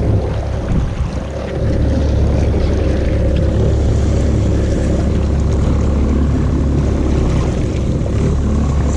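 Steady low rumble of wind and choppy water around a small boat at sea, with an outboard motor running underneath; it grows louder about a second and a half in.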